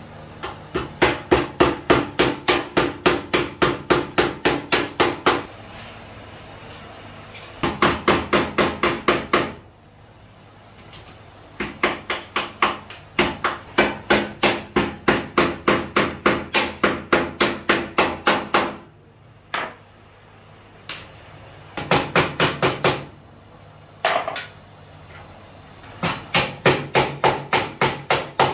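Rapid hammer strikes, about five a second, in six runs lasting one to five seconds with short pauses between them, against a sewing machine table as it is assembled.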